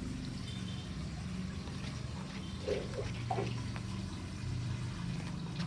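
Metal spoon scraping the soft meat out of a young coconut shell: faint, irregular scrapes over a steady low hum.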